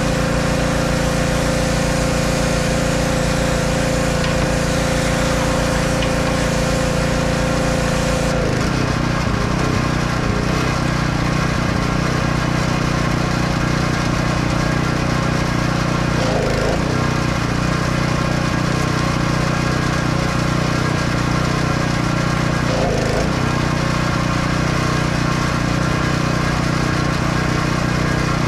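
Pressure washer running steadily while a semi-truck cab is washed. About eight seconds in, the machine's sound changes as a high steady tone drops out.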